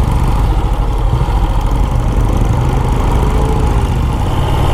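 Motorcycle engine running steadily at low road speed while riding, a continuous even rumble.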